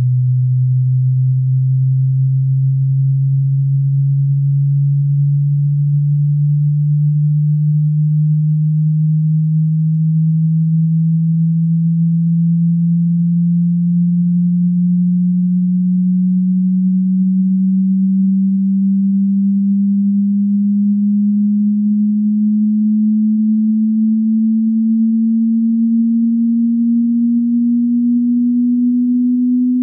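A pure sine test tone of a hearing-test frequency sweep, held at steady loudness and gliding slowly and smoothly upward in pitch by about an octave, from a low hum.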